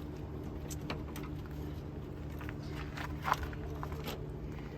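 A few light, scattered clicks and taps from handling door parts and tools, the loudest about three seconds in, over a steady low hum.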